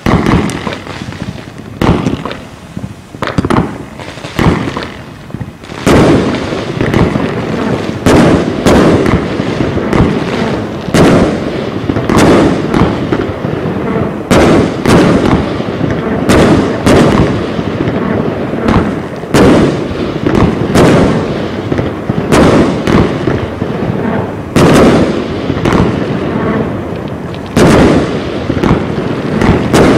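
Heron Cake 456, a 178-shot firework cake of up to 30 mm calibre, firing: a few scattered launches and bursts at first, then from about six seconds in a rapid, continuous volley of shots and bursting shells.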